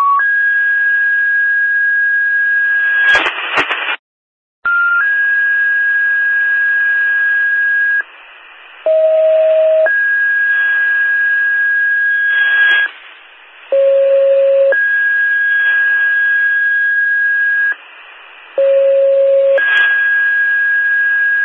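Two-tone sequential fire-paging alert tones over a dispatch radio: a run of tone pairs, each a short lower tone of about a second followed by a steady higher tone of about three seconds, the long tone at the same pitch each time. Radio hiss and brief static crackles fill the short gaps between pairs. The tones set off the pagers of the fire stations being dispatched to the fire.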